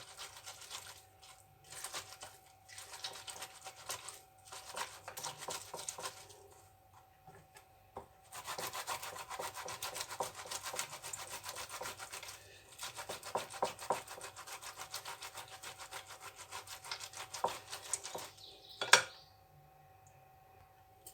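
Lemons and oranges being grated by hand on a grater: runs of rapid rasping strokes of fruit against the grater's teeth, with short pauses between runs. A single sharp knock near the end is the loudest sound.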